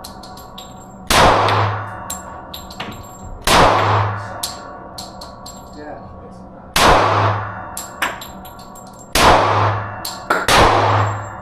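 Glock 30 pistol firing .45 ACP rounds, five shots a couple of seconds apart with the last two closer together, each ringing out in an echoing indoor range. Light clinks sound between the shots.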